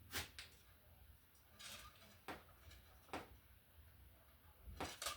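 Faint, scattered clicks and short scrapes of hands working a wire's insulation down in an electrical outlet box, about half a dozen small handling sounds.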